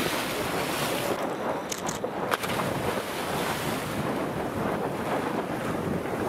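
Wind buffeting the microphone over sea water splashing and churning where scuba divers have just jumped in off a pier, with a short sharp knock about two seconds in.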